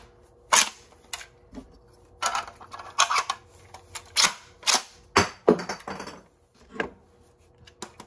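Freshly reassembled 3D-printed pump-action foam dart blaster being primed and fired: about ten sharp plastic clacks at irregular spacing, some in quick pairs, from the priming handle being racked and the plunger catch releasing.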